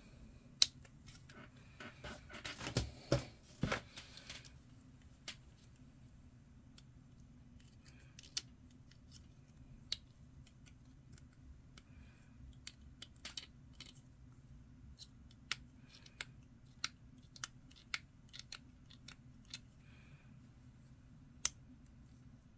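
Sharp snips and clicks of hobby tools cutting a grey plastic armour plate from its sprue and trimming the leftover nubs. A single loud snip comes about half a second in, a rustle of the plastic frame being handled follows around two to four seconds, and scattered small clicks run on through the rest.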